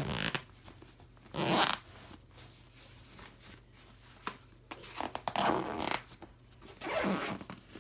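Backpack zipper being pulled closed in several short runs with pauses between, the longest about five seconds in.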